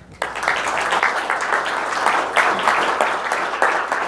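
Audience applauding. The clapping starts abruptly a moment in and holds steady.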